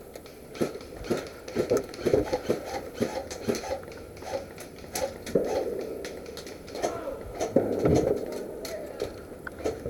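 Scattered sharp clicks and knocks at an irregular pace, over low rustling.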